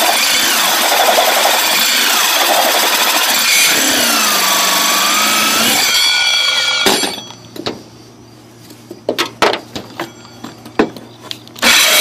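Corded electric drill driving a 4-inch hole saw through wood, the motor's pitch wavering under load as the saw bites. About seven seconds in the drill stops abruptly, a few sharp knocks and taps follow, and the drill starts cutting again near the end.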